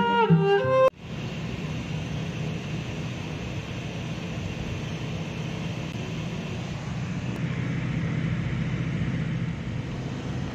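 Steady road and engine noise inside a passenger van cruising on a highway. Background music cuts off about a second in.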